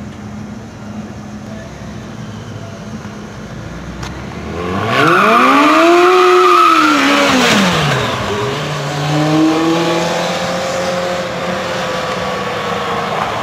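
Kawasaki ZZR1200 inline-four engine of a T-Rex three-wheeler idling, then revving up hard about four seconds in as it pulls away. The engine drops back at an upshift around eight seconds in, then pulls in the next gear and fades as it drives off.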